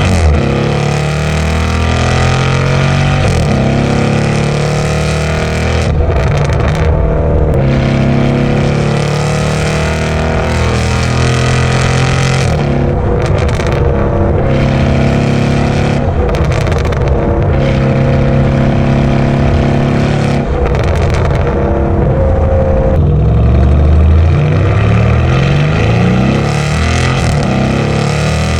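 Lamborghini Urus SE's twin-turbo V8 running through a full Novitec aftermarket exhaust as the car is driven, its pitch rising and falling, climbing in steps near the end.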